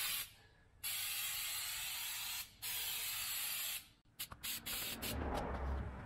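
Aerosol can of Flex Seal rubber coating spraying: a short puff, then two long even hisses of about a second and a half each with a brief break between, followed by a few light clicks.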